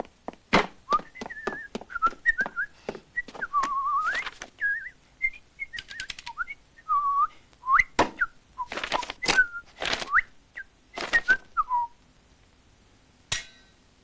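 A person whistling a wandering tune in short phrases, its pitch sliding up and down, over a string of sharp clicks and knocks. Both stop about twelve seconds in, and one last click follows.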